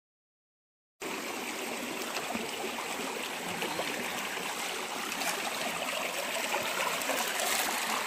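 Shallow hill stream running over rocks, a steady rushing trickle that starts suddenly about a second in.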